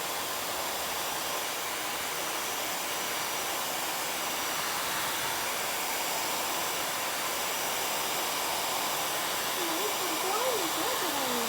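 Hair dryer running steadily: a constant rushing blow of air with a faint steady whine. A few short sliding, voice-like sounds come in near the end.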